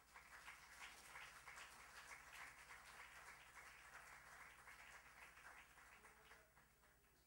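Church congregation applauding: many hands clapping, starting abruptly and dying away about six to seven seconds in.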